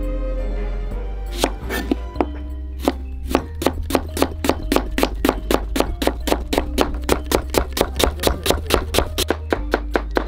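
A cleaver slicing an onion on a plastic cutting board: quick, even knife strikes on the board, about four a second, starting about a second and a half in and stopping just before the end, over background music.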